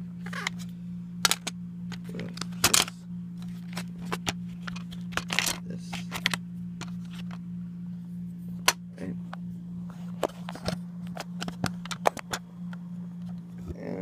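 Irregular clicks, taps and knocks of small objects being handled, a few sharper and louder than the rest, over a steady low electrical hum.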